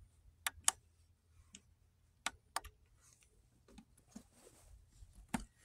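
Scattered sharp clicks and taps of plastic buttons and a plug being handled on a portable power station, about six separate clicks with short gaps between them.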